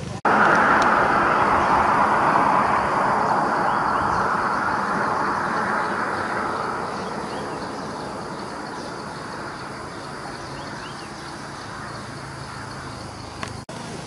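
A road vehicle going by. Its steady rushing noise starts suddenly and fades away over about seven seconds, leaving a low steady background.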